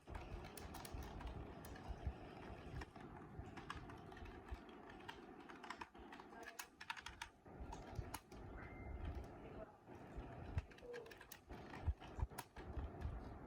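Keys of a Limedie computer keyboard being typed on, a steady run of irregular clicks and clacks.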